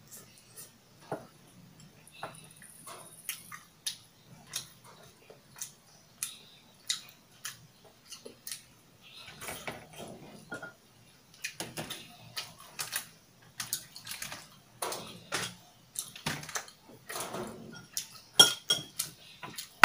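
Close-miked eating sounds: chewing with short wet mouth smacks, mixed with occasional light clicks of chopsticks on dishes, a few louder clicks near the end.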